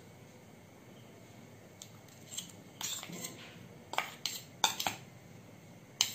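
A steel spoon clinking and scraping against a stainless steel bowl as chopped banana is spooned out, in a series of light clinks that start about two seconds in.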